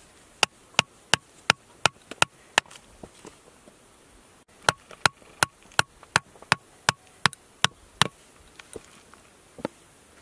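Hammer blows on a steel chisel driven into layered rock: about seven sharp, slightly ringing strikes at about three a second, a pause of about two seconds, then about ten more at the same pace.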